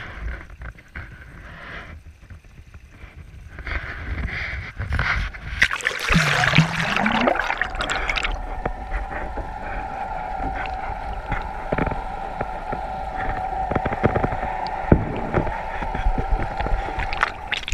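A GoPro camera on a pole plunges into the water: a rush of splashing and bubbling about four to eight seconds in. After that the sound is muffled and underwater, through the camera housing, with a steady high tone and a few light ticks.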